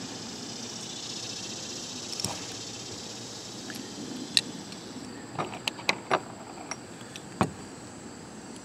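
Small, sharp clicks and taps of plastic and metal as a carburetor's plastic float and its thin hinge pin are handled and fitted back onto the carburetor body. They come as a short cluster of ticks from about halfway through.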